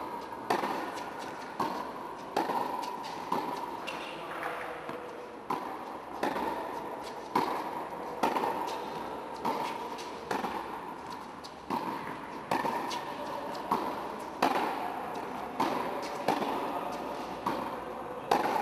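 Tennis rally on an indoor hard court: racket strikes and ball bounces, a sharp pop about once a second, each echoing in the hall.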